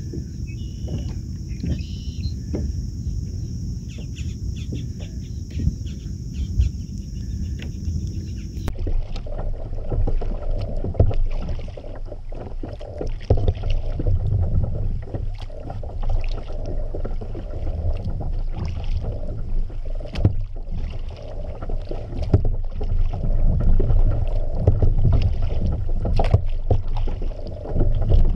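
Kayak paddle strokes dipping and splashing in the water, with a steady low rumble under them. About nine seconds in, a steady high hiss cuts off abruptly and the splashing becomes fuller and more uneven.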